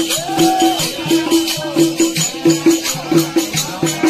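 Bundeli Rai folk music: a hand drum beating a steady, fast rhythm of alternating low and high strokes, with metallic jingles shaking along on the beat.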